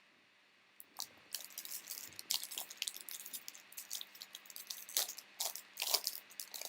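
Crinkling and tearing of a trading card pack's wrapper as it is opened: a dense run of sharp crackles that starts about a second in and goes on to near the end.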